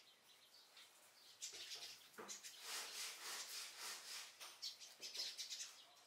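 A flock of Eurasian tree sparrows chirping, quick high chirps that come thick and overlapping from about a second and a half in.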